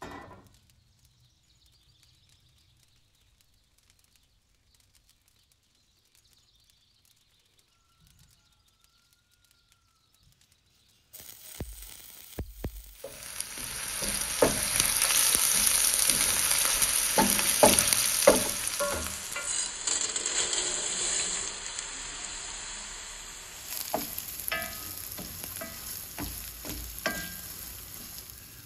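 Near silence for about the first eleven seconds. Then chopped onion starts sizzling loudly in hot oil in an enamel pan, stirred with a wooden spoon that clicks and scrapes against the pan. Later, rice grains sizzle as they toast in the oil, the first stage of a risotto.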